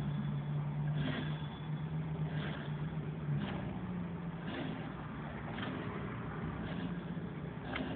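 GoPed scooter's rear wheel freewheeling after a hand spin, its new, unoiled drive chain running over the sprockets with a steady low whir and a faint tick about once a second. It runs without any stray rattle, a sign that the chain is set up well.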